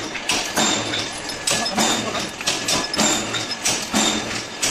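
Mechanical power press stamping: a steady rhythm of ringing metallic double clanks, about one every three-quarters of a second.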